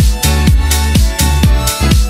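Instrumental nu disco dance music: a steady four-on-the-floor kick drum, about two beats a second, under a bass line and held synth chords.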